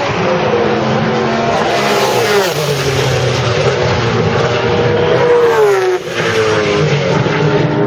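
Pagani Zonda C12 GR race car's Mercedes-AMG V12 running hard on track, its pitch climbing and then falling away twice: once about two and a half seconds in and again near six seconds, where the level briefly drops.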